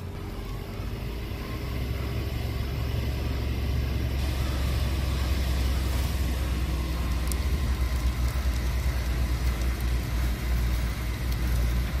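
Fire truck's engine running steadily with a low rumble, driving the pump for the roof-mounted water cannon, under a steady hiss. The rumble grows louder over the first few seconds, then holds.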